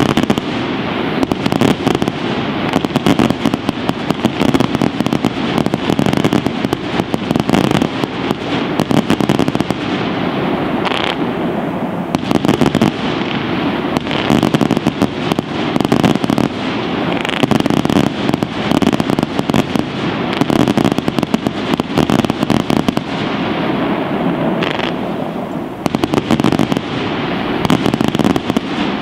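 Fireworks display of low fountains and rising comets going off continuously: a loud, dense crackle of rapid pops and sharp cracks with no let-up.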